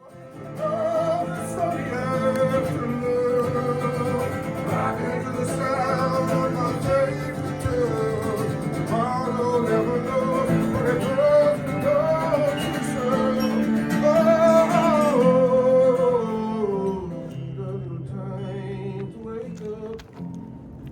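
Music with plucked acoustic guitar under a gliding lead melody. It thins out and gets quieter about sixteen seconds in.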